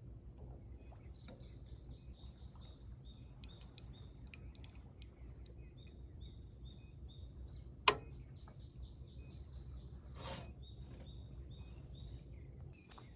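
Birds chirping, short high notes repeated over and over, over a steady low background rumble. A single sharp click, the loudest sound, cuts in about two-thirds of the way through.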